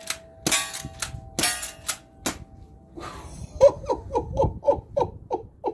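Walther lever-action air rifle fired in a rapid string at a steel gong target: several sharp hits in the first two seconds or so, the gong ringing on between them. After a short pause a man laughs in a run of short "ha" bursts.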